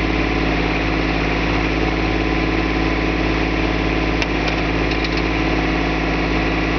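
John Deere tractor engine running at a steady speed while it powers a rear backhoe attachment through digging and swinging. A brief click about four seconds in, and a few faint ticks soon after.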